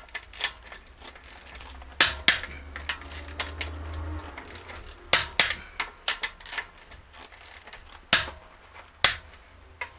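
Click-type torque wrench and socket on car wheel bolts, tightened in a cross pattern to 120 Nm: scattered sharp metallic clicks and clinks, some in quick pairs.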